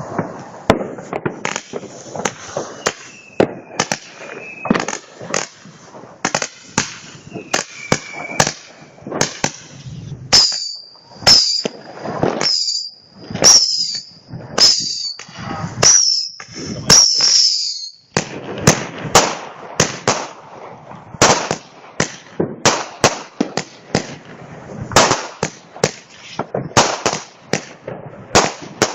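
Consumer fireworks battery (cake) firing a rapid series of sharp bangs, about two a second. From about a third of the way in, for some seven seconds, each shot carries a short high whistle.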